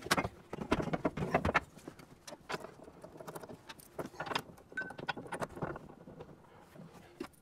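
Irregular clinks, clicks and knocks of a metal roof-rack bracket and its bolts being handled and positioned against a Jeep hard top. It is busiest in the first couple of seconds.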